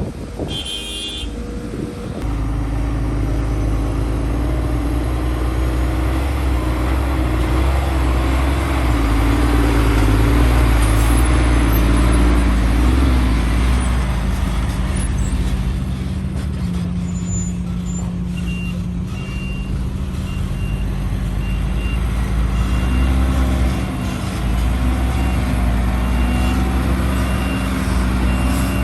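Heavy diesel engines of an excavator and dump trucks working, the engine note rising and falling with the load. From about halfway through, a backup alarm beeps repeatedly.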